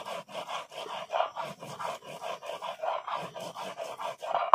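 Stone roller rubbed back and forth over a flat grinding stone (shil-nora), grinding a wet paste of chillies, cumin and ginger that is nearly finished: a rhythmic rasping of stone on stone, about three strokes a second.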